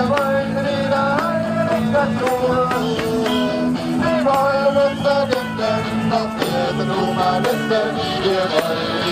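Music: a voice singing over acoustic guitar, with a light, regular percussion beat.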